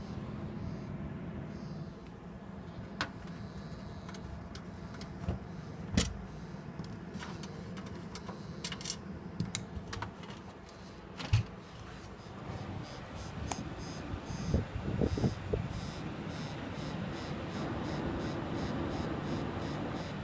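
Sapphire Tri-X R9 290 OC graphics card's cooling fans spinning with a steady hum and a rattling, grating noise, with scattered clicks and knocks, the loudest about eleven seconds in. The grating is typical of the early Tri-X cooler: too little clearance between shroud and heatsink lets the fans grate against the heatsink fins at certain speeds.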